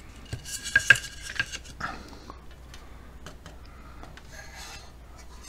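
Wooden cabinet panels and a brass-trimmed metal faceplate from a Guild Town Crier table radio being picked up and moved about on cardboard, giving a quick run of light knocks and clacks over the first couple of seconds, the sharpest about a second in, then only faint handling.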